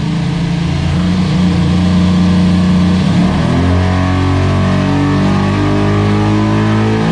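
A 357-cubic-inch Gen II LT1 small-block V8 in a Chevrolet S-10 pickup running hard during a hub-dyno pull. It holds a steady pitch for about three seconds, then its revs climb steadily from about halfway through.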